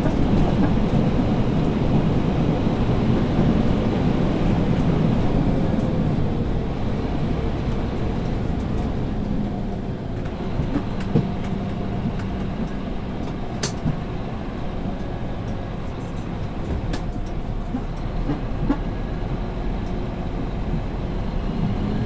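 Scania P360 dump truck's diesel engine running with the truck under way, a dense low rumble with road and chassis noise. The level eases a little about ten seconds in, and a few short sharp knocks or rattles come through near the middle and end.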